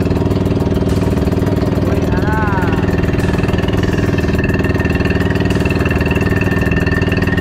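Outrigger fishing boat's engine running steadily at cruising speed, with a fast even pulse. A brief rising-and-falling warbling tone sounds over it about two seconds in.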